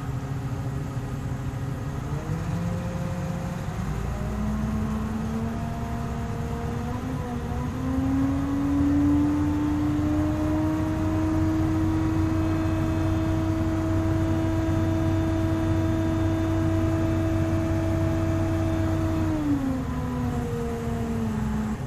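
Truck crane's diesel engine speeding up under hydraulic load as the first telescopic boom section extends: the pitch rises in two steps over the first several seconds, holds steady and louder, then falls back near the end as the extension stops.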